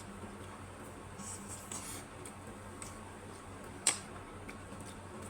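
Quiet eating sounds over low room noise: faint soft clicks and smacks of people eating noodles, with one sharper click about four seconds in.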